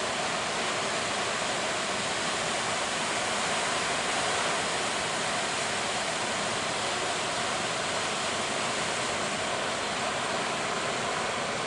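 Heavy surf breaking, a steady even roar of rushing water with no separate crashes standing out.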